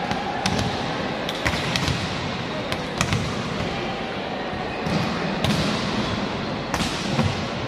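Volleyballs being hit and spiked in a team warm-up: a string of sharp slaps and thuds, hand on ball and ball on the court floor, about eight in a few seconds at irregular spacing, over a steady background hubbub.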